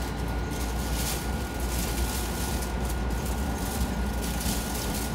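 Steady hum and rumble inside a stationary electric train standing at a station platform, with a thin, constant high tone running through it.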